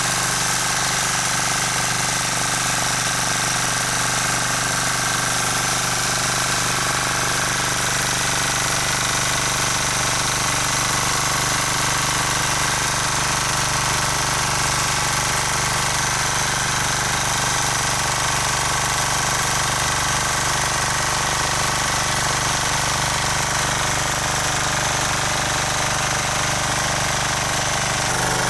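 Rotakt walk-behind rotary tiller's engine running steadily as its tines churn through the soil.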